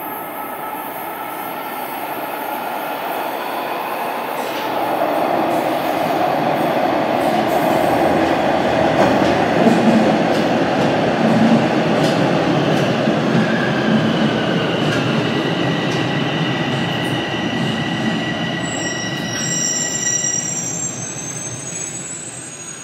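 A Bombardier Toronto Rocket subway train pulls into an underground station. The rumble of its wheels on the rails grows louder as it runs along the platform, with steady whines as it slows. A high brake squeal comes shortly before it stops near the end.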